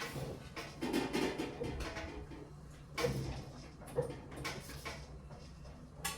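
Scattered light clinks and knocks of cooking utensils and pots, a few separate sharp taps about a second or so apart, all fairly quiet.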